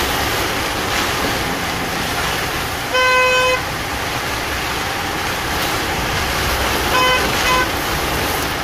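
Vehicle horn honking: one half-second honk about three seconds in, then two short beeps of the same pitch about seven seconds in. Under it runs the steady noise of heavy rain and the wet road, heard from inside the moving vehicle.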